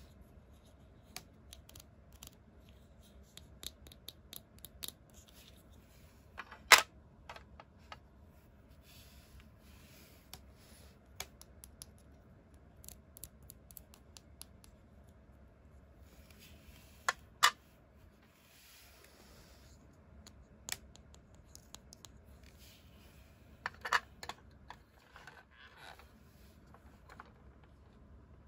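Small hard plastic toy furniture pieces from a Hello Kitty ambulance playset clicking, tapping and snapping together as they are handled and fitted. Scattered light clicks with soft rubbing in between, the sharpest snap about seven seconds in, a quick pair around seventeen seconds and a short cluster near twenty-four seconds.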